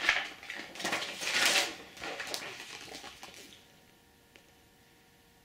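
Large paper wall-calendar pages rustling and flapping as they are handled and turned over, in a few bursts over about three seconds, the loudest about a second and a half in.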